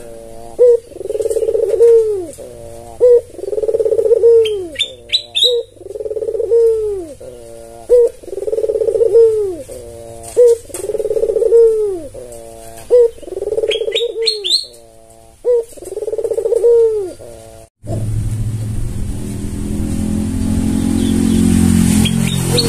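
White albino puter dove (Barbary dove) cooing over and over in a steady rhythm: a short sharp note followed by a long, low, rolling coo, about every two and a half seconds. Twice, a few quick rising high squeaks from another small bird are heard. The cooing cuts off suddenly near the end and a steady low rumbling noise takes over.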